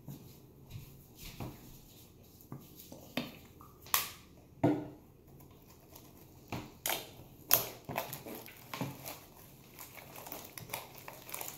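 Blue fluffy slime being kneaded and squeezed by hand, giving irregular wet squelches and sharp clicks, a few louder than the rest.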